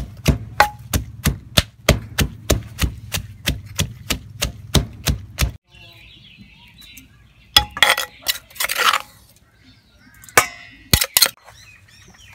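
Wooden pestle pounding shallots and green chillies in an earthenware mortar, a steady rhythm of about three strokes a second that stops abruptly about five and a half seconds in. Later come a burst of clattering and rustling and a few sharp knocks.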